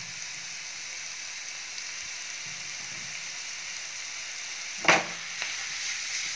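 Chopped vegetables sizzling steadily in ghee in a nonstick frying pan. About five seconds in there is a single sharp clank as the pan is lifted off the burner, then the vegetables shift and rustle as the pan is tossed.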